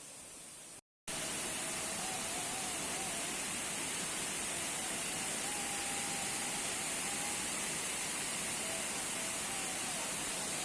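Steady rush of falling water from a large waterfall, cutting in abruptly about a second in after a brief dropout. A faint wavering high tone drifts over the rush for several seconds.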